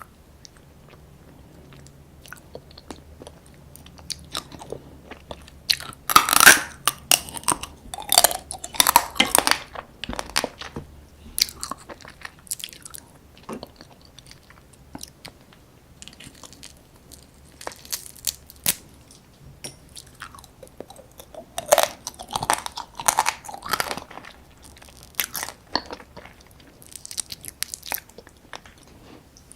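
Close-up eating sounds of soy-sauce-marinated raw crab: irregular bites and crunches with chewing in between, the loudest crunches coming about six to ten seconds in and again around twenty-two seconds.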